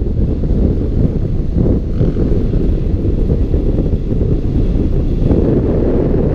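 Airflow buffeting a wing-mounted camera's microphone on a hang glider in flight: a loud, steady, low rumble of wind noise.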